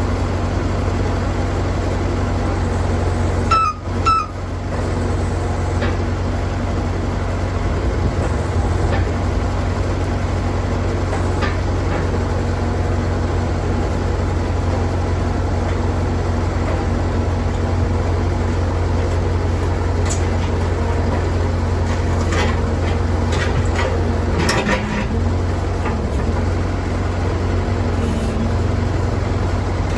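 Skid loader engine running steadily under load while it drills a post hole with an auger attachment, with two sharp clicks and a brief drop in the engine sound about four seconds in.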